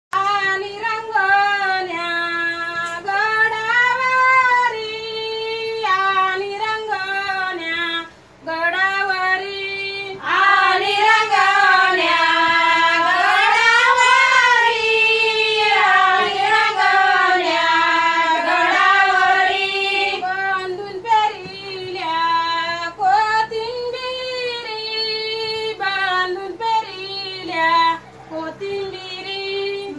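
Women's voices singing a fugadi folk song without instruments, in high-pitched lines that step from note to note. The singing gets louder and fuller from about ten seconds in until about twenty seconds in.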